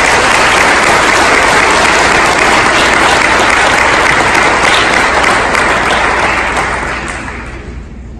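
Audience applauding in a large room, steady and loud, then dying away near the end.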